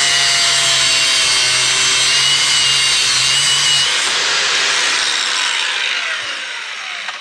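Power cutting tool running under load, cutting into a copper tube with a stainless steel rod inside. A steady whine runs for about four seconds, then the tool winds down with a falling pitch and fades near the end.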